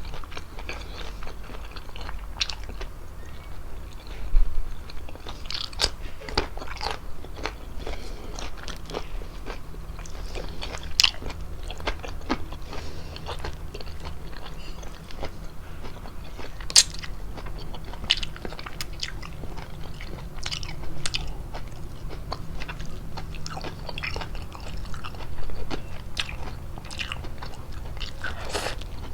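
Close-miked chewing of fettuccine pasta with chicken: mouth sounds with many scattered sharp clicks and smacks.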